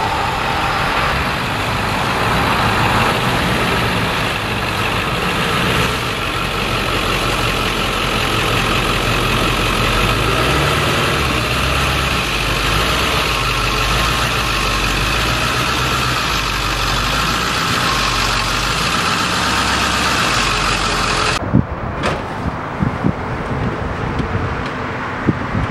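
A motor vehicle's engine running steadily at low revs, its pitch shifting a little as it moves the car on a tow rig. About 21 seconds in it cuts to a quieter sound with a few sharp knocks.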